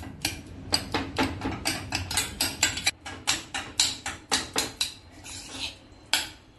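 Metal ladle pounding boiled raw banana pieces against the bottom of a pressure cooker to mash them: quick metallic knocks, about three a second, with a softer scraping stretch near the end and one last knock.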